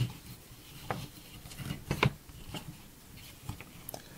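Rope being wrapped and pulled tight around wooden poles: soft rustling of the cord over the wood with a few scattered light clicks and taps, the sharpest about two seconds in.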